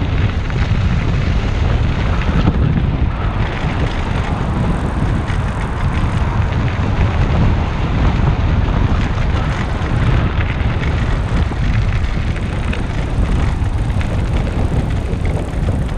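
Wind rumbling over the microphone of a camera mounted on a moving recumbent trike, over the steady rolling crunch of its tyres on a sandy dirt trail.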